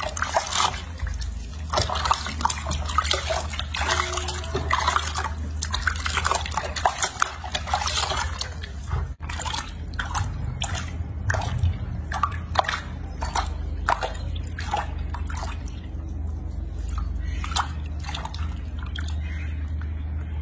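Water splashing and dripping in a washbasin as hands scoop and pour water over a baby monkey being bathed: a run of many small splashes and drips, denser in the first half, over a steady low hum.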